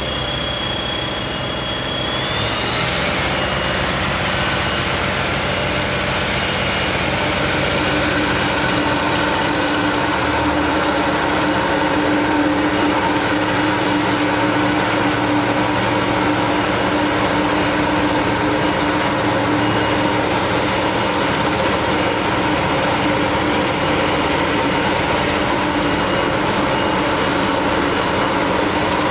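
Vibratory hammer on an RTG RG 19 T piling rig driving steel sheet piles. A loud, steady machine drone carries a high whine that rises in pitch over the first ten seconds or so and then holds steady, with a strong hum joining after about eight seconds.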